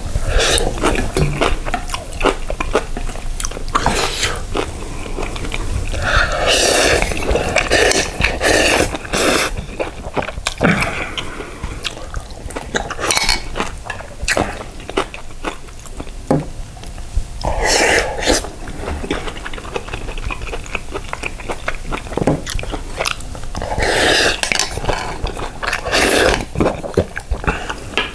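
Close-miked eating: jjajang ramen noodles and beef slurped and chewed wetly, with several longer slurping bursts. A wooden spoon clacks and scrapes against ceramic bowls while more is served.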